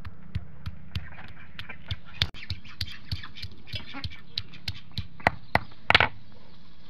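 Ducks quacking on and off, with scattered light knocks and clicks. About six seconds in comes the loudest sound, a short splash as water is poured from a small metal pot onto a stone grinding slab.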